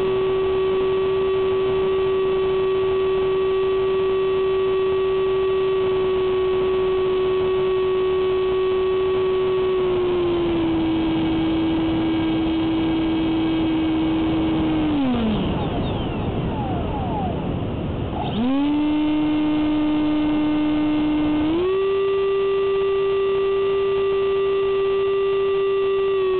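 Electric ducted fan of a Durafly Vampire RC jet running with a steady whine, heard through a camera mounted on the model. About fifteen seconds in the pitch slides down as the throttle is cut and rushing air takes over for a few seconds, then the fan spools back up, first to a lower pitch and then, a few seconds later, back to its earlier pitch.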